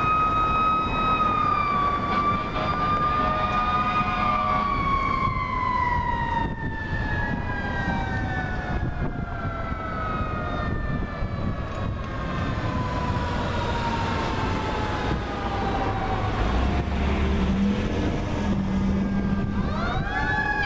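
Fire engine's Federal Q mechanical siren wailing as the truck approaches. It holds a high pitch at first, then winds down slowly in a long falling wail, and is spun up again in a quick rising wail near the end.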